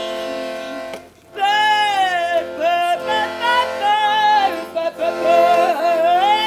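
Live music: a voice singing a wavering melody over steady held accordion chords, with a short break about a second in.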